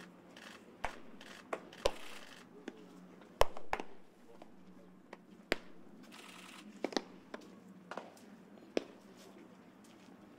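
Baseballs smacking into leather gloves during a game of catch among several players: irregular sharp pops, the loudest about three and a half seconds in.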